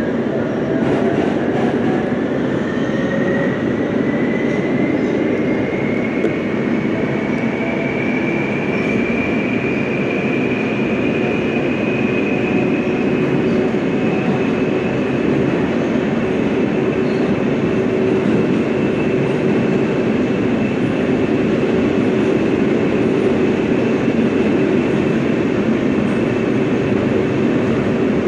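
R143 subway train running through a tunnel, heard from inside the car. The electric traction motors' whine rises in pitch over the first ten seconds or so as the train accelerates, then holds steady over the constant rumble of wheels on rail.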